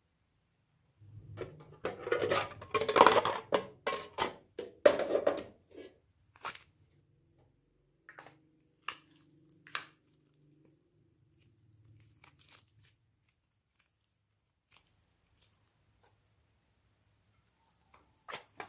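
Hands handling materials: a few seconds of rustling, tearing noise, followed by scattered light clicks and taps.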